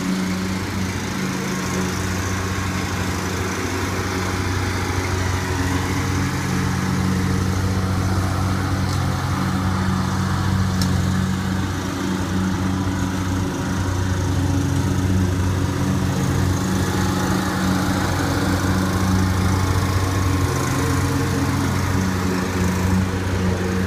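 Riding lawn mower's engine running steadily as the mower drives across the yard.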